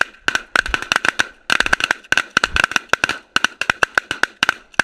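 Geese honking and clucking in a fast, dense series of short, sharp calls, about six to eight a second, with a brief lull near the end.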